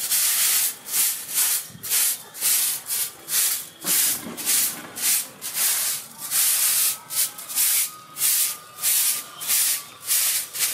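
A soft grass broom sweeping a packed-earth floor in brisk, even strokes, about two a second.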